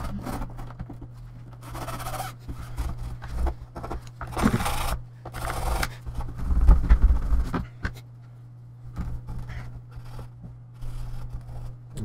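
Scrubbing and wiping the plastic edge of a computer's frame with a cleaning cloth and tool: irregular scraping, rubbing strokes, a few of them louder around the middle.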